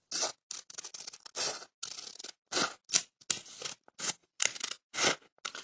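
Scissors snipping through folded paper along a drawn outline, a quick, uneven run of short cuts, about three or four a second.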